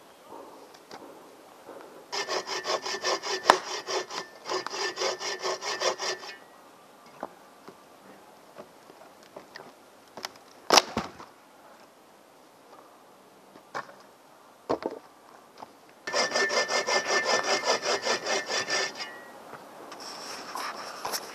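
Hand saw cutting through a dry dead branch in two runs of quick back-and-forth strokes, about four a second, with a single sharp knock between them.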